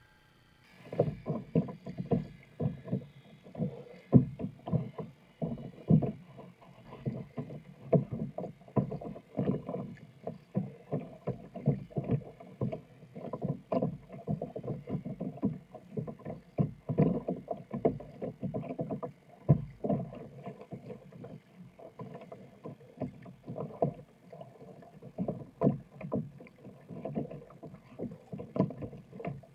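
Kayak being paddled through choppy water: irregular splashing and slapping of water against the plastic hull and paddle blades, starting about a second in.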